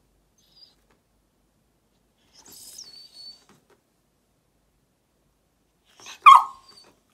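Border collie whining in thin, high-pitched squeals, a faint one about half a second in and a longer one near three seconds that falls in pitch, then one short, sharp bark about six seconds in, the loudest sound. It is demanding, tantrum-like whining.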